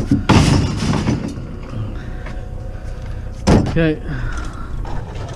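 Scrap being handled and loaded into a vehicle. There is a rustling scrape near the start, then a hard clunk about three and a half seconds in, followed by a brief squeak.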